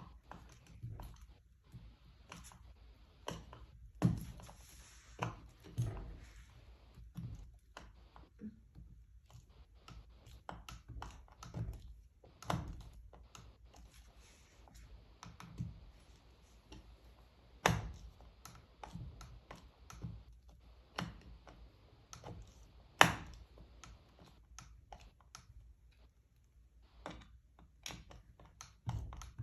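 Hand tools clicking and knocking irregularly against metal while a bolt held with blue Loctite is worked loose, with a few louder clanks.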